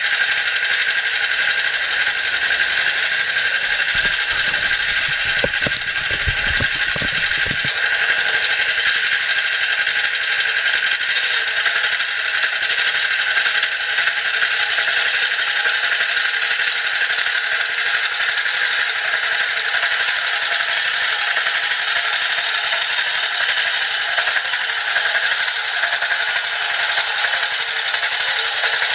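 Small engine of a homemade screw cone log splitter rigged as a self-propelled rope winch, running steadily at idle with a fast, even chatter.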